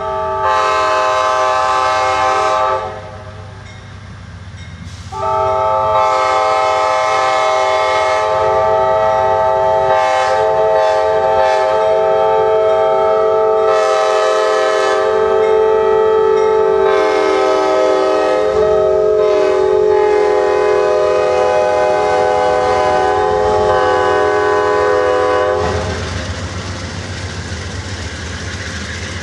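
Horn of an Amtrak P42DC diesel locomotive leading a passing passenger train, a multi-note chord: one blast of about three seconds, then after a short pause a long blast held for about twenty seconds. Near the end the horn stops and the rumble and wheel clatter of the passenger cars rolling by take over.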